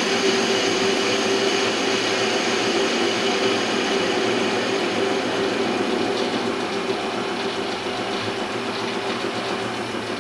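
Small lathe running while a CCMT carbide insert takes a facing cut across the end of a free-cutting steel bar: a steady machine hum with the hiss of the cut, tapering off near the end.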